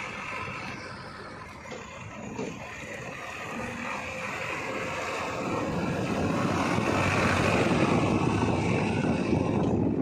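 JCB 3DX backhoe loader's diesel engine running as the machine drives, growing louder over the second half.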